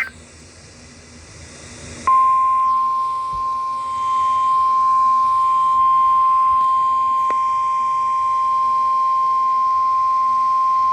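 NOAA Weather Radio 1050 Hz alert tone: one steady, loud single-pitch tone, the warning alarm that precedes a severe weather warning. It starts about two seconds in, after faint radio hiss, and holds for about nine seconds.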